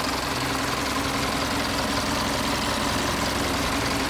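Isuzu Elf truck's diesel engine idling steadily with a light clatter, heard directly from the open engine bay.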